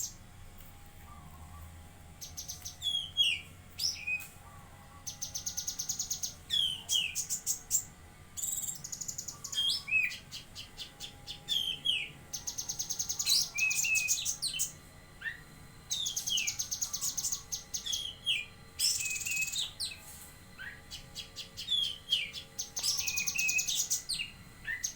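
Cucak kinoi songbird singing in full, energetic song: rapid high buzzing trills of a second or two, alternating with short whistled notes that slide downward, repeated again and again.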